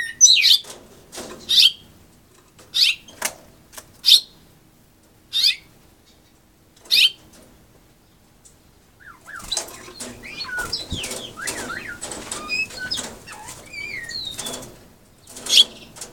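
A caged house finch giving short, sharp chirps every second or so, then a stretch of quick, twittering warble mixed with wing flutters as it moves about the cage, and one more loud chirp near the end.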